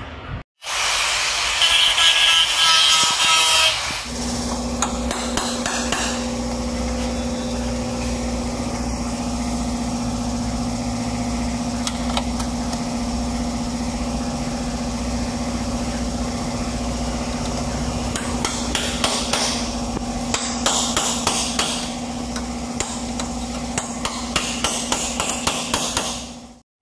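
Hammering on metal in a car body workshop: many short knocks over a steady machine hum. A loud harsh noise, such as a grinder, runs for the first few seconds.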